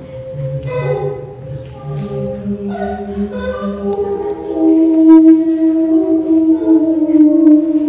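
Improvised electroacoustic music: several sustained pitched tones overlap and shift, then a held low tone swells louder about halfway through.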